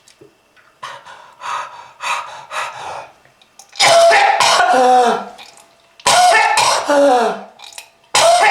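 A person coughing in fits, a smoker's hacking cough: a run of short coughs, then three long, harsh coughs, each with a voiced tail that falls in pitch.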